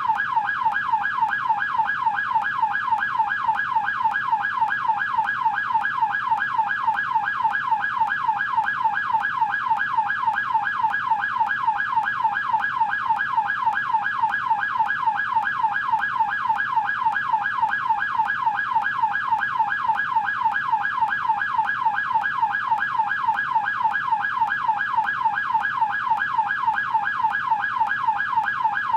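American police car electronic siren on its yelp setting: a fast, even up-and-down wail repeating several times a second, steady throughout.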